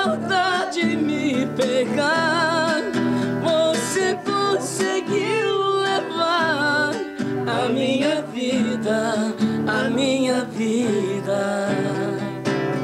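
Acoustic guitar strummed while a man sings, his held notes wavering with vibrato.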